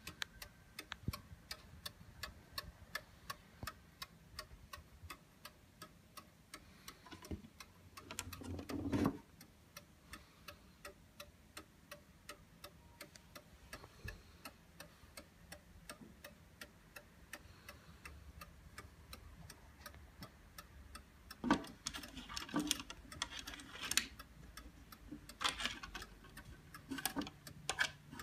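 The movement of an antique 18th-century Black Forest bracket clock ticking steadily and evenly as its pendulum swings. A few louder rubbing or scraping noises come in about a third of the way through and again near the end.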